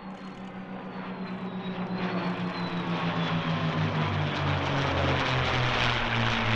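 Formation of two P-51 Mustangs and an F-16 passing overhead. The throbbing drone of the Mustangs' piston engines drops in pitch as they go by, under a jet rush that grows steadily louder toward the end.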